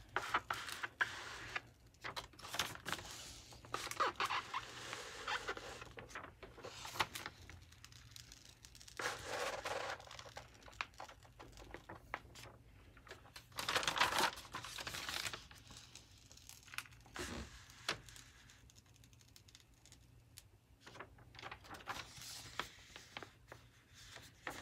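Clear plastic protective film on a diamond painting canvas crinkling and peeling off the adhesive, with hands rustling over the canvas. It comes in irregular bursts of crackling, the loudest about two-thirds of the way through.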